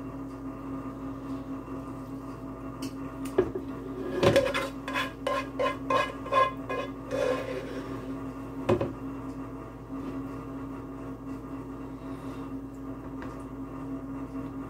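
Serving spoon scraping and knocking meat sauce out of a metal pan: a run of about six ringing clinks from the pan a little before the middle, with a few single knocks around them. A steady low hum runs underneath.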